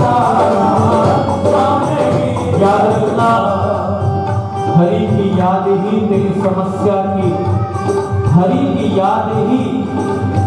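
Hindi devotional bhajan: male voices singing over instrumental accompaniment.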